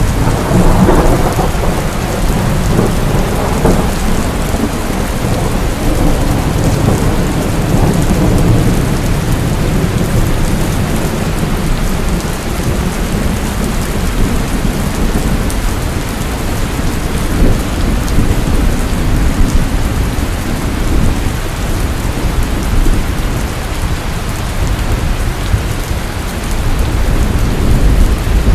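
Heavy rainstorm with steady pouring rain and rolling thunder. A low thunder rumble swells in the first few seconds and another builds near the end.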